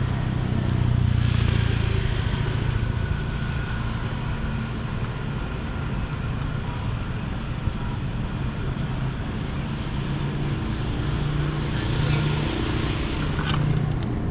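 Road traffic ambience: a steady rumble of vehicle engines, with passing vehicles swelling about a second in and again near the end, and a brief sharp click or tap near the end.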